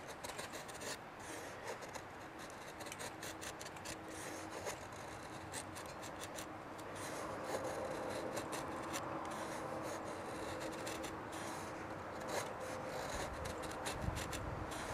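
Fixed-blade knife shaving thin curls down a split stick of wood to make a feather stick: repeated short scraping strokes of the blade along the grain.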